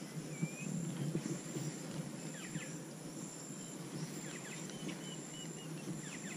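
Outdoor insect buzzing: a high, thin, steady trill that comes and goes in stretches, with scattered short bird chirps and a run of quick chirps about five seconds in, over a low rustle.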